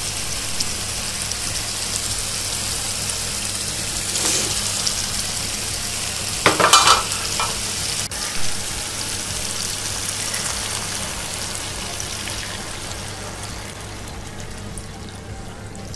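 Onion and spice masala sizzling steadily in hot oil in a pan. A spatula stirs and scrapes it twice, about four and seven seconds in. The sizzle fades gradually near the end.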